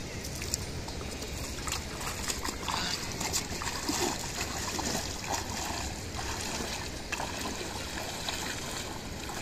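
River water splashing and sloshing as people wade through it, in a run of small irregular splashes.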